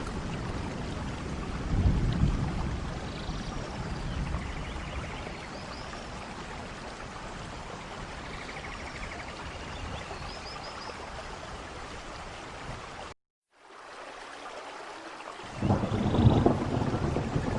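Heavy rain falling steadily on garden plants and foliage, with low rumbling surges about two seconds in and again near the end. The sound cuts out completely for a moment about two-thirds through, returns quieter, then swells again.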